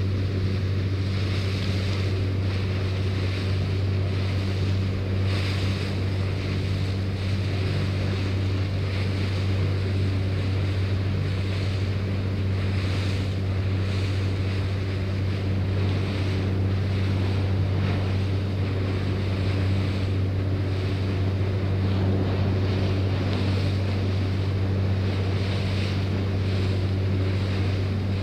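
A riverboat's engine running at a steady cruising drone, with wind and water rushing past the moving bow.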